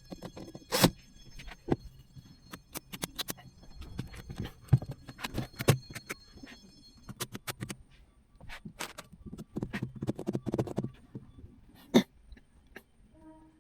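Irregular clicks and knocks, as of things being handled and set down, with a faint steady high whine during the first half.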